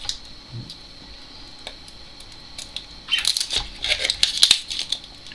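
Pet birds chattering in a dense burst of high calls starting about three seconds in and lasting about a second and a half.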